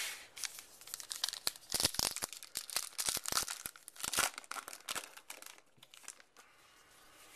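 A baseball card pack's wrapper being torn open and crinkled: a dense run of crackles and rips that thins out after about five seconds.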